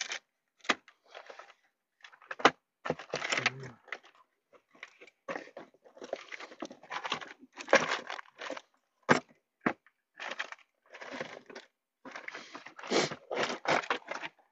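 Irregular rustling and crinkling with a few sharp clicks and knocks, as things are handled.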